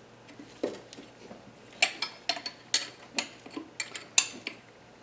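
Irregular metallic clinks and knocks of hand tools against steel engine hardware, a wrench and socket working the large alternator-bracket bolts on a KA24DE engine.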